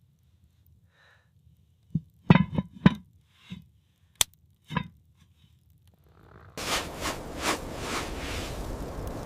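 A handful of short, sharp knocks and thuds, irregularly spaced, followed by a steady rushing noise that starts suddenly about two thirds of the way in.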